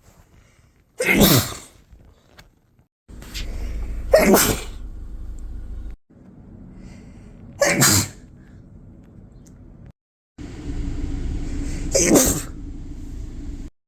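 Four separate human sneezes in quick succession, each a short sharp burst from a different clip. A steady low rumble sits behind the second and fourth.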